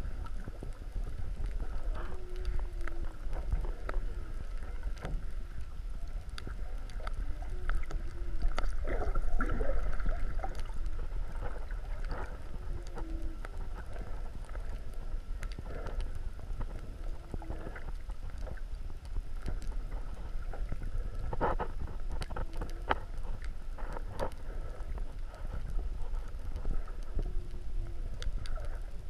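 Underwater sound picked up by a submerged camera: a steady low rumble of water with scattered clicks and crackle, a thin steady high tone, and short wavering tones every few seconds, with a longer swelling glide about a third of the way in.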